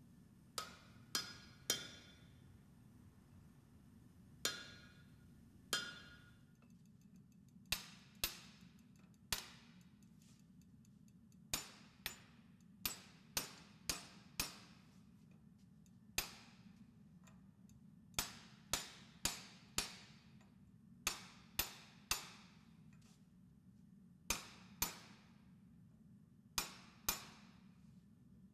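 Hand hammer striking steel on an anvil while forging an axe head, in short groups of two to six blows with pauses between; a few of the early blows ring briefly.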